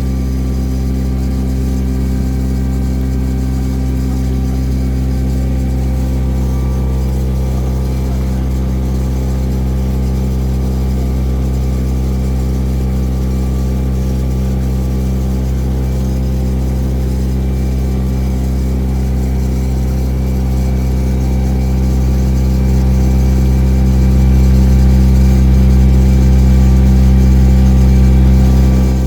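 Cruise boat's engine running steadily, a low droning hum that swells louder over the last several seconds.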